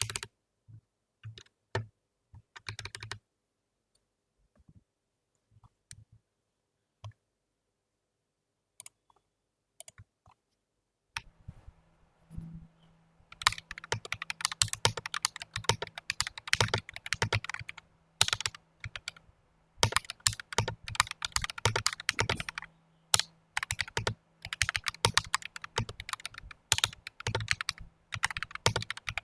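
A few scattered single key clicks, then, about halfway through, continuous fast typing on an NJ68 mechanical keyboard with a stainless steel plate, fitted with Akko CS Vintage White switches.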